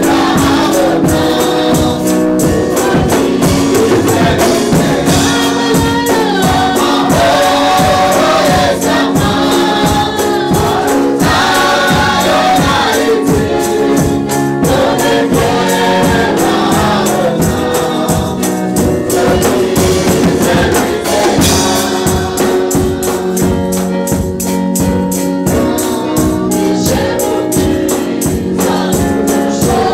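Church choir singing a gospel song into microphones, with a tambourine shaken in time over a steady beat.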